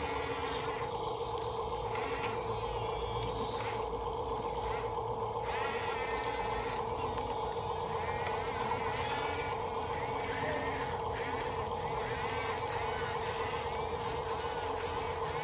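RC bulldozer's small electric drive motors running steadily with a constant whine, with a faint warbling higher sound coming and going over it.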